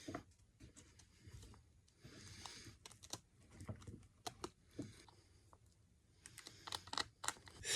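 Faint, scattered light clicks and taps of small poplar pieces being handled and folded together, growing more frequent near the end.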